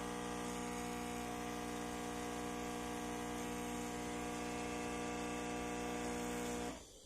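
De'Longhi Dedica Arte espresso machine's vibratory pump running during a shot extraction, a steady buzzing hum with hiss. It cuts off abruptly near the end as the pump stops.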